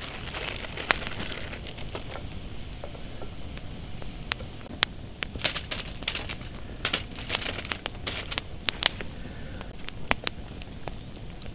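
Aluminium foil and a plastic bag crinkling as food is wrapped into a foil packet, in bursts that are thickest midway, with sharp pops and crackles from a wood campfire throughout.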